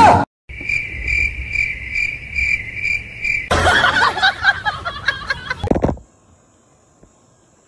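Cricket chirping: a steady high-pitched pulsing, about two or three chirps a second, lasting about three seconds. Then comes a couple of seconds of louder jumbled noise, and it falls to near silence for the last second and a half.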